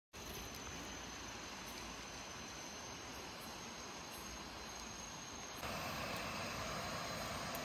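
Crickets and other night insects calling steadily over an even hiss, a little louder from about five and a half seconds in.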